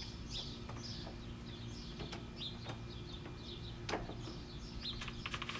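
Small birds chirping repeatedly in short high calls, with a few sharp clicks and a quick run of taps about five seconds in.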